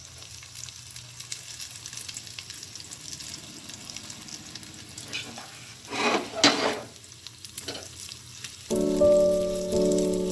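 Faint sizzling of egg-and-milk batter cooking in a ghee-greased pan, with a spatula scraping as it spreads chicken filling over it, and a louder scrape or two about six seconds in. Background music starts near the end and is louder than the cooking.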